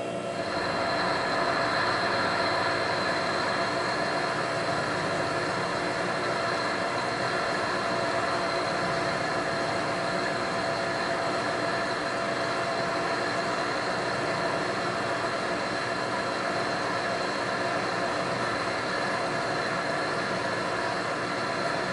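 Precision Matthews PM-935TV milling machine cutting steel with a high-speed-steel end mill: the steady hum of the motor and spindle under the noise of the cut, with a high steady whine that sets in about half a second in.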